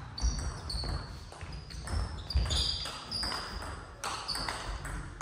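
Table tennis ball struck back and forth in a rally: short, sharp clicks of ball on bat and table, roughly two a second, each with a brief high ring.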